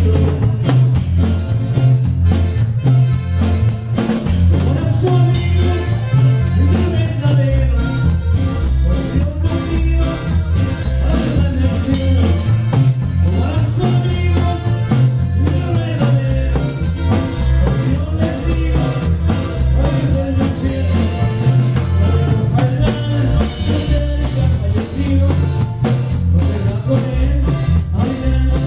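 Live norteño group playing Latin dance music through the PA, with a steady pulsing bass line and drums.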